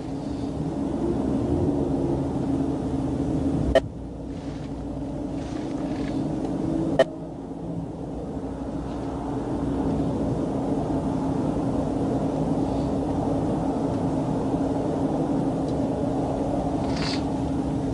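Interstate traffic passing the stopped cars, a steady wash of tyre and engine noise with a constant hum under it, swelling as vehicles go by. Two sharp clicks, about four and seven seconds in.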